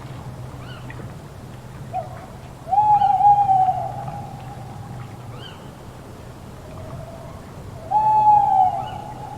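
An owl hooting 'too-woo': twice, a short lower note followed by a long wavering hoot that fades away, the first about three seconds in and the second near the end.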